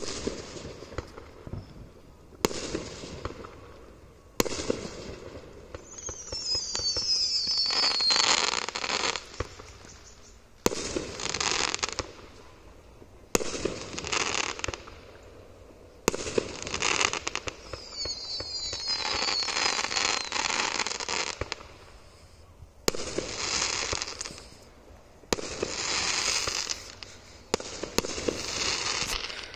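Aerial fireworks bursting one after another: about eight sharp bangs, each followed by a crackle lasting one to three seconds. Twice a high falling whistle sounds over the crackle.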